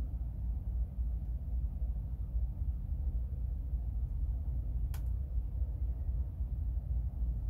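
Steady low rumble, with one sharp click about five seconds in.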